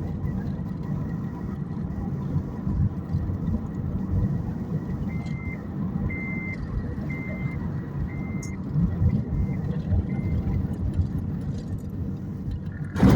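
A motor vehicle running with a steady low rumble. In the middle comes a series of six short electronic beeps about a second apart, and right at the end there is a brief loud rush of noise.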